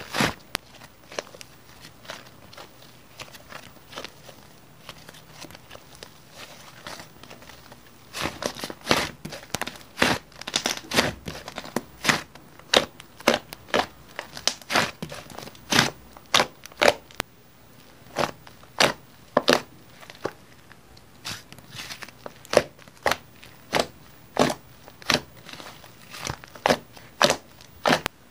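Mixed strawberry latte slime being squished and poked by hand, giving irregular sharp clicks and pops. They are sparse and soft at first, then come thick and loud from about eight seconds in.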